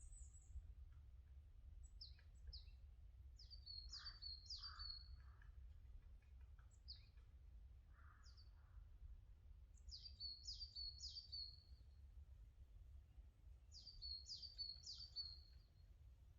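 A songbird singing faintly: a short phrase of three or four quick, high, downward-sweeping notes, repeated about every five seconds, with single notes in between, over a steady low rumble.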